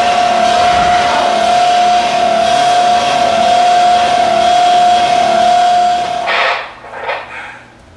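Loud electronic noise from a theatre soundtrack: a harsh, dense din with one steady high tone held through it. It cuts off suddenly about six seconds in, followed by a few short hissing bursts.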